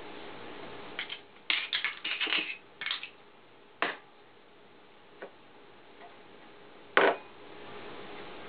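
Eggs being cracked and separated by hand: a run of sharp clicks and taps of eggshell on a bowl rim and of shell halves knocking together. They are bunched in the first few seconds, then come singly, with the loudest crack about seven seconds in. A faint steady hum lies underneath.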